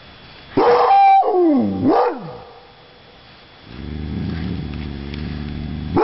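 Two long yelping animal calls about a second in, each sliding down in pitch, followed by a low steady droning rumble in the second half.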